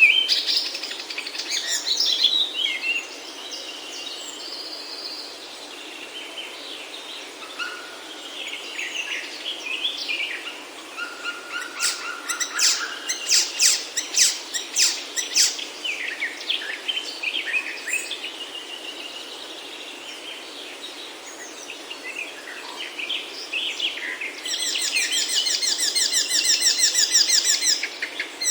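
Small birds chirping in short, high, varied calls. About three-quarters of the way through, a fast, rapidly repeated twittering begins, typical of nestlings begging to be fed.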